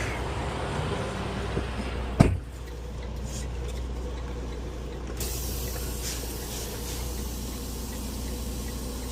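International 9900 semi truck's diesel engine running at low speed while backing up, heard from the cab, with one sharp, loud pop about two seconds in.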